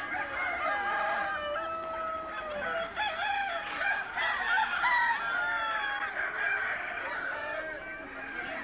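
A large flock of free-range roosters and chickens, many crowing at once over one another, with clucking throughout.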